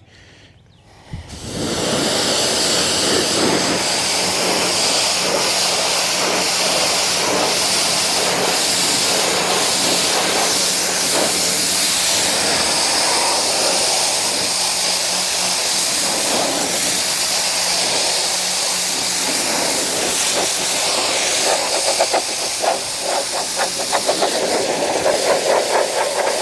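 Pressure washer jet spraying against a car's paintwork: a loud, steady hiss that starts about a second and a half in, with a low hum under it for most of the time.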